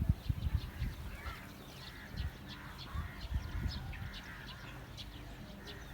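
Flock of month-old chicks peeping, many short high calls overlapping, with a few low thumps and bumps near the start and a couple more in the middle.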